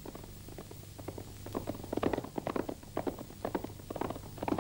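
Quick, irregular footfalls coming closer, getting louder and denser from about a second and a half in, over a faint steady hum.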